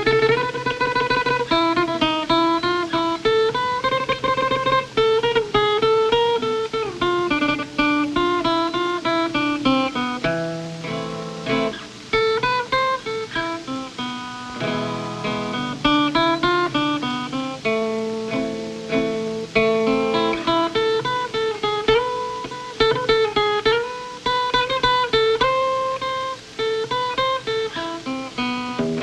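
Acoustic guitar music: a picked melody over low bass notes, several notes a second.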